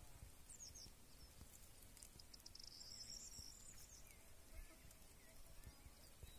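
Near silence: faint outdoor ambience in an open meadow, with a few faint high-pitched chirps and a short high trill about halfway through.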